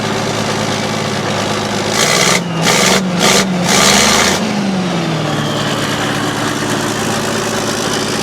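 Chevy 350 small-block V8 idling steadily in a truck. About two seconds in, a loud hissing rush comes in three or four spurts with short breaks for about two seconds, while the engine pitch dips and rises before settling back. This is the unfamiliar noise the owner says the truck has never made before.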